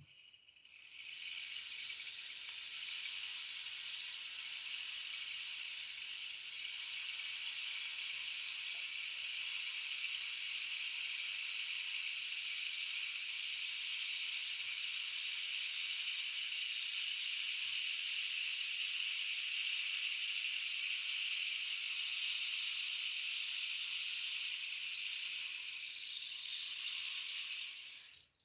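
One-metre rainstick pouring: a steady, even hiss of its filling trickling down through the tube, which thins out near the end and stops as the fill runs through.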